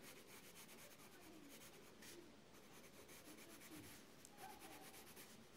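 Faint scratching of a Prismacolor coloured pencil on paper, in many quick, light strokes.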